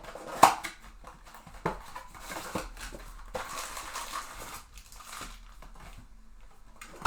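Trading-card packs and plastic being handled up close: crinkling wrapper noise with scattered clicks, the sharpest about half a second in.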